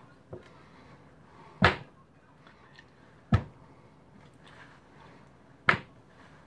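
Three sharp slaps, roughly two seconds apart, of hands striking a kitchen countertop, with a fainter tap just before the first.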